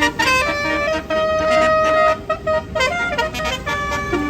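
Tour bus's Basuri-type telolet horn playing a tune of held notes that step up and down, with a stretch of short, choppy toots in the middle.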